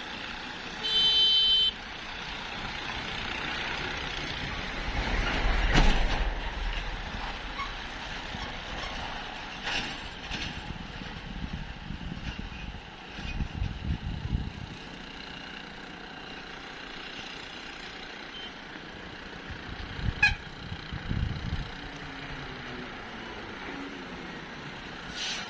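Road traffic, with a vehicle horn sounding once, briefly and loudly, about a second in. A vehicle passes close around six seconds in, and traffic keeps running after it.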